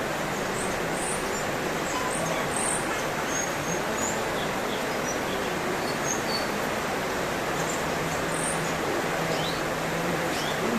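Short, high bird chirps and whistles, scattered and irregular, over a steady loud hiss like rushing water.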